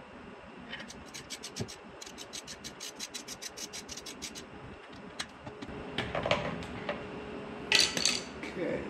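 Rapid ratcheting clicks, about six a second for a few seconds, from a ratcheting hand tool undoing the fasteners of a paramotor engine's pull starter. Scraping and clinking follow, with a short, loud metallic clatter near the end as a tool meets the concrete floor.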